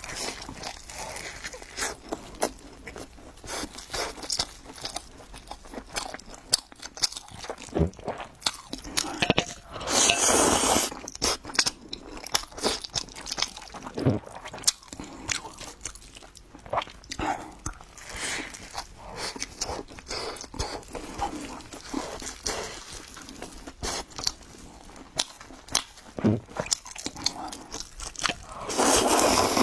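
Close-miked eating: a person biting and chewing crunchy food, a run of small crunches and mouth clicks, with two louder noisy stretches, one about ten seconds in and one near the end.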